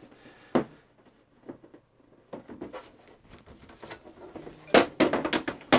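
Plastic parts of a graphics tablet's casing being handled and fitted back together during reassembly, giving scattered clicks and knocks, the loudest bunched near the end.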